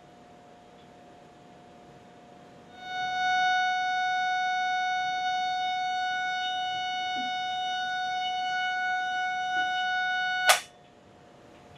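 Microwave receiver's audio tone: a faint steady tone that rises sharply about three seconds in to a loud, buzzy, steady tone rich in overtones. It holds for about eight seconds and cuts off with a click, leaving the faint tone. The tone is loud when the receiver picks up a strong microwave signal.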